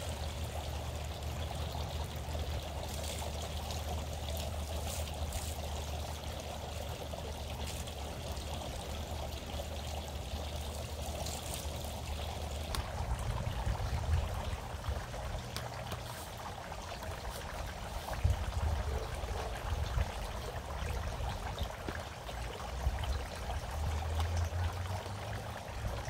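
Three-tier outdoor water fountain running, water trickling and splashing steadily down its tiers.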